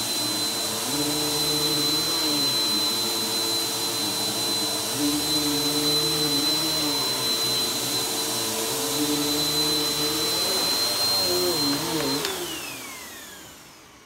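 Upright bagless vacuum cleaner running on carpet with a steady high motor whine, its lower hum shifting in slow cycles as it is pushed back and forth. About twelve seconds in it is switched off and the motor winds down, the whine falling in pitch as the sound fades.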